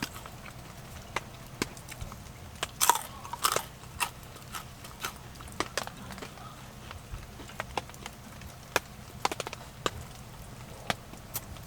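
Crisp rice cracker (senbei) being bitten and chewed: scattered sharp crunches, with a burst of several about three seconds in.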